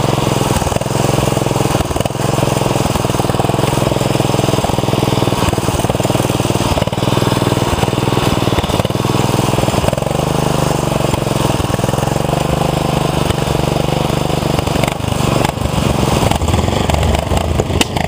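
Modded 13 hp Honda-clone single-cylinder engine on a racing lawn tractor running hard at speed with a steady, loud note that changes near the end.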